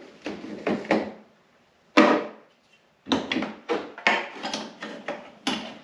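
Irregular knocks and clatter of hard parts being handled and fitted during snowmobile reassembly, with one sharp, loud knock about two seconds in and a quicker run of knocks in the second half.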